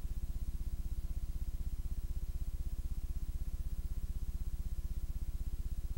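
Steady low electrical hum with a fast, even pulsing, on the audio track of a VHS tape whose programme has ended.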